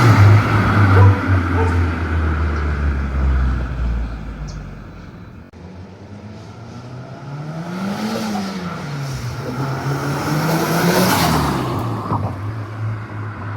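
Turbocharged Nissan SR20DET four-cylinder engine being driven hard, its revs rising and falling several times. Near the end the turbo's blow-off valve vents with a rush of air as the revs drop.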